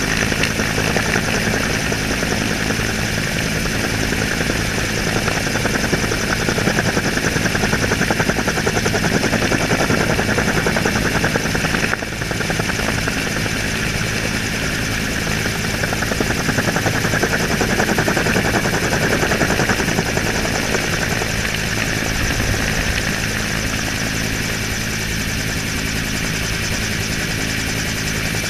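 Helicopter in flight heard from on board: steady rotor and engine noise with a fast blade flutter, dipping briefly about twelve seconds in.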